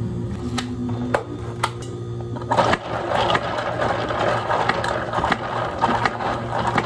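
Ice cubes rattling and clinking against the plastic cup as a long spoon stirs an iced green grape ade, starting about two and a half seconds in and going on nearly to the end. Before that, a few sharp clicks from the ice as sparkling water is poured over it.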